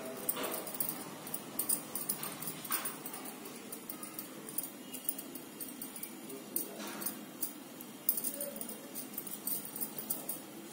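Glass bangles clinking in small irregular clicks as a hand pats and presses wet lentil batter into patties on a damp cloth, over a faint steady hum.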